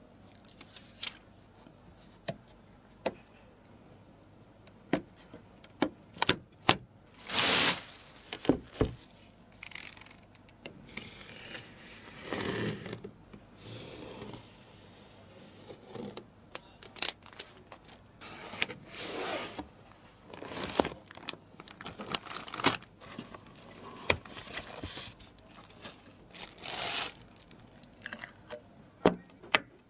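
Computer parts being handled and fitted: scattered sharp clicks and small knocks, with a few short bursts of scraping and rustling, the loudest near the middle and again near the end.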